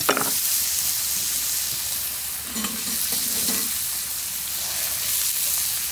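Porterhouse steak and pats of butter sizzling steadily in a searing-hot cast iron skillet, the butter melting down on its way to brown butter.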